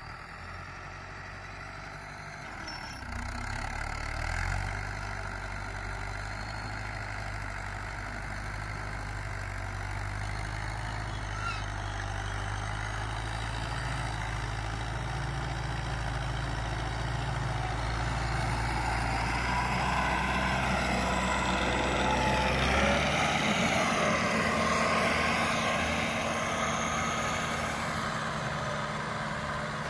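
Farm tractor's diesel engine running steadily under load while pulling a tillage implement, growing louder as it draws near. About three-quarters of the way through, its low note drops away and the engine sound changes.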